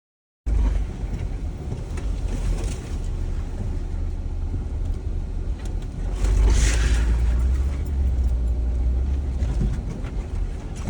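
Jeep driving slowly along a rutted dirt trail: steady low engine and drivetrain rumble with tyre and body noise. It starts abruptly after half a second of silence, and a brief louder hiss rises about six and a half seconds in.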